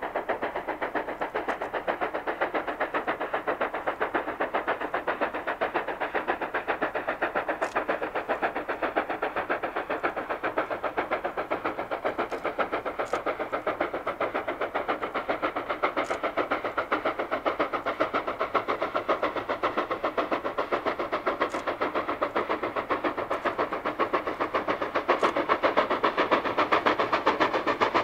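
Steam locomotive working towards the listener, its exhaust beating in a rapid, steady rhythm. It grows a little louder near the end as the engine draws closer.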